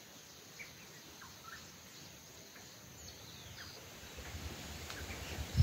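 Faint short chirps of small birds scattered over a steady outdoor hiss. From about four seconds in, a low, uneven rumble builds on the microphone.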